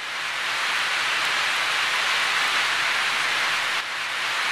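Steady rain falling on a car's roof and windscreen, heard from inside the cabin. It fades in over about the first second.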